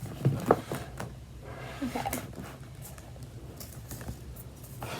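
A few light knocks and rustles from a laptop and its box being handled, loudest in the first half second, followed by faint scattered clicks.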